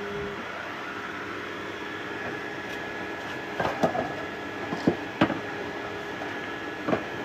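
3D printers running: a steady whir of fans and stepper motors with a few faint steady tones. Several sharp clicks or knocks come over it from about halfway through.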